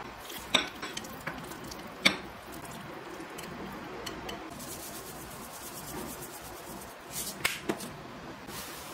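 Food being scraped out of a glass mixing bowl into a ceramic bowl with a wooden utensil: soft rubbing with a few sharp clinks, the loudest about two seconds in, and a quick cluster of knocks near the end.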